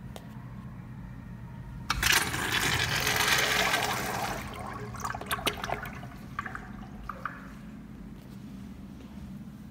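Flushometer valve flushing a Kohler wall-hung urinal: a sudden rush of water about two seconds in that lasts about two and a half seconds, then dies down into short gurgles as the bowl drains.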